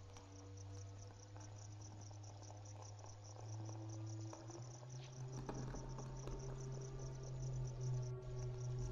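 Insects chirping in a fast, even pulse, over a low steady hum that steps up in pitch about three and a half seconds in and again a second later.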